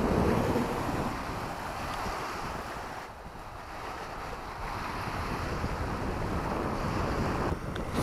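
Hard wind blowing on the microphone, over small sea waves washing onto a gravelly shore.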